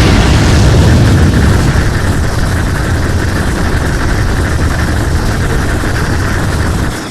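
Godzilla film sound effect: a loud, steady rumbling and hissing blast of noise with no pitched call in it, held for about seven seconds before fading out at the end.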